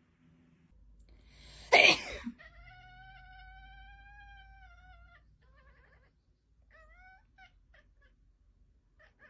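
A person sneezes loudly once, about two seconds in, and a cat answers with one long, drawn-out meow lasting nearly three seconds, followed by a few short rising meows.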